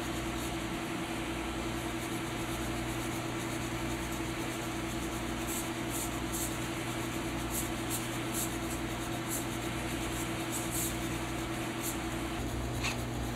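A steady mechanical hum with a few faint, high clicks about halfway through.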